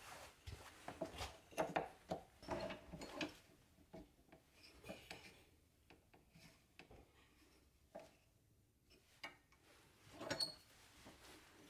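Wooden knocks, clicks and rubbing as an oak baluster blank is pushed into a wooden drive block on a stopped wood lathe and the tailstock is brought up against it. The knocks cluster in the first three seconds, with another short clatter about ten seconds in.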